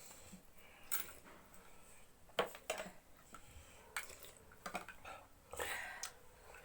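Eating utensils clicking against bowls several times during a meal of noodles and soup, with a longer, softer noise near the end.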